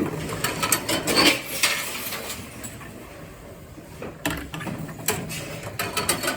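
Tomra 70 reverse vending machine's mechanism handling a returned bottle: a run of clicks and clunks, a quieter stretch in the middle, then another cluster of clicks.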